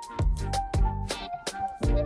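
Background music with a steady beat: drum hits several times a second over held bass notes and a melody.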